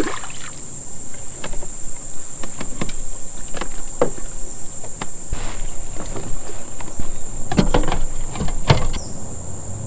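A steady high-pitched drone from an insect chorus, with scattered knocks and clicks from gear being handled in a kayak, several close together near the end.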